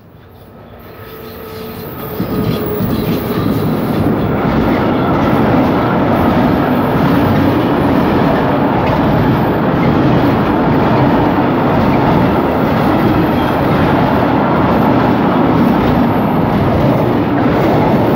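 Freight train passing close by: the noise grows over the first two to three seconds as the train approaches, then a long string of open freight wagons rolls past with steady, loud wheel-on-rail rumble and clatter.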